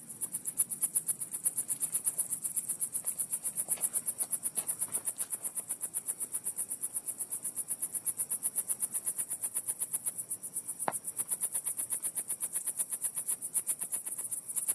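Crickets chirping in a fast, even, high-pitched pulse, about six chirps a second, easing briefly about ten seconds in. Underneath is a faint low, muffled rumble like a bad speaker or a leaking car muffler, of unknown source. A single sharp click comes near the end.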